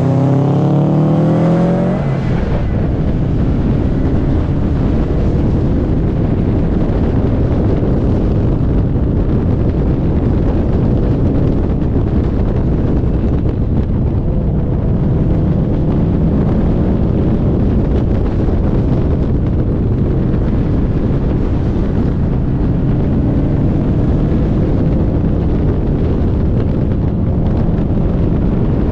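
A car's engine revving up with rising pitch for the first couple of seconds, then a steady rush of wind on the microphone over engine and road noise as the car drives on.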